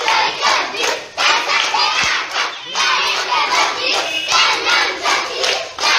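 A group of children chanting and shouting together in a rhythmic call, with hand clapping, as part of a circle game.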